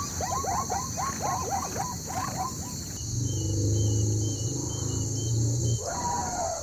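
Zebra calling in a quick series of short barking yelps, about three a second, for the first three seconds. Then an elephant gives a low steady rumble for nearly three seconds, and one higher call comes near the end.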